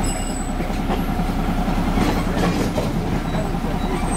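Narrow-gauge train running with a steady low rumble.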